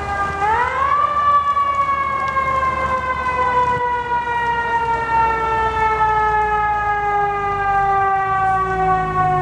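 Mechanical emergency siren, of the kind on fire engines, winding up sharply about half a second in, then a long wail slowly falling in pitch as it coasts down.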